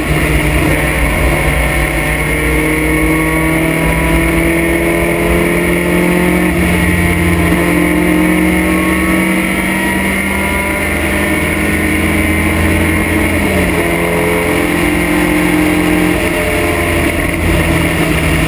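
Open-cockpit vintage race car's engine heard from the cockpit, running steadily under load. Its pitch climbs slowly, drops once about two-thirds of the way through, then holds steady.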